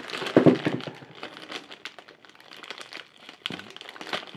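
Clear plastic packaging bag crinkling as it is handled, a run of small crackles that is loudest about half a second in.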